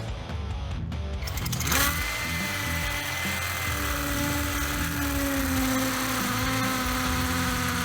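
Ferrex 20V brushless cordless hammer drill drilling into Besser brick with a masonry bit: it starts about two seconds in and runs with a steady motor whine over a dense gritty hiss, its pitch sinking slightly as it works, and it stops at the end.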